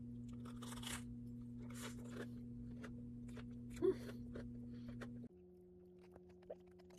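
Close-miked crunching of a crisp, crumb-coated fried bread with a cream filling being bitten and chewed, a crunch about every second. A steady low hum lies underneath and drops to a quieter, different pitch about five seconds in.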